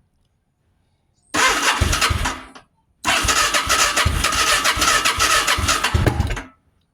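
Yamaha V-Star V-twin motorcycle engine being cranked on its electric starter in two tries, a short one about a second in and a longer one of about three and a half seconds, with a pause between. It cranks without catching, started cold without the choke.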